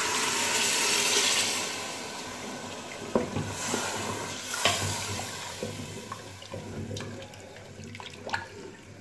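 Water poured in a stream into a pressure cooker of fried beef masala, loudest for the first two seconds and then dying away. A wooden spoon then stirs the watery stock, knocking against the side of the pot a few times.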